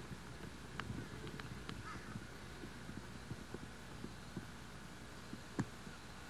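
Faint steady low hum with scattered soft clicks and ticks, the background noise of an old videotape recording.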